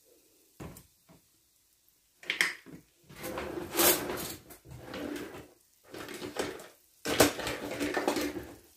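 Kitchen handling noise at the stovetop: a few short knocks, then several longer bursts of rubbing and clattering as the oil bottle and cookware are moved about.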